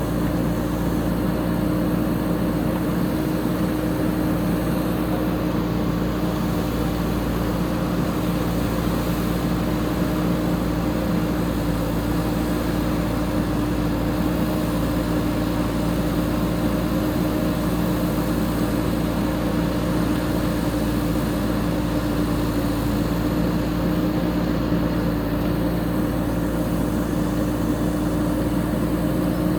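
JCB 3DX backhoe loader's diesel engine running steadily at a constant speed.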